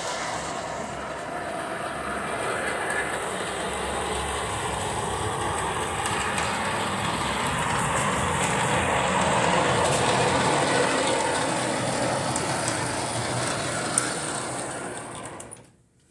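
Standard-gauge model Camelback steam locomotive running on metal track: a steady rumble of wheels and gearing, louder about halfway through as it passes close, dying away near the end.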